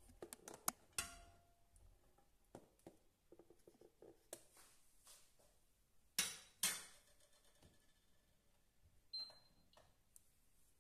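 A metal spoon clinking and scraping against an enamel pot as it stirs chickpeas in water, with two sharper knocks about six seconds in. In between, the spoon makes only light scattered ticks.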